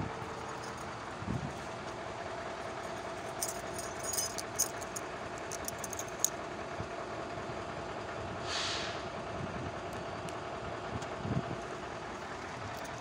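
Steady mechanical hum with a constant mid-pitched tone running under it. Light clicks and rattles come a few seconds in, and a short hiss comes about eight and a half seconds in.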